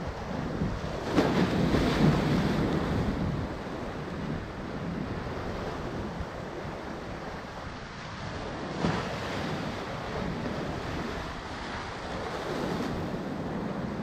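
Ocean surf breaking and washing over shoreline rocks, with wind on the microphone. A bigger wave surges about a second in and another near the middle.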